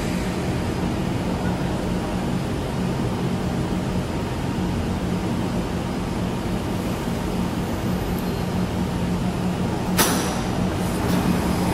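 Singapore MRT train standing at an underground platform behind glass platform screen doors, with a steady low hum of the train and the station's air-handling. About ten seconds in there is one sharp burst of noise.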